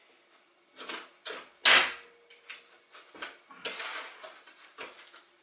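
Metal tools and engine parts being handled and set down on a bench: a string of knocks and clicks, one loud knock just under two seconds in, and a short rustling scrape a little past the middle.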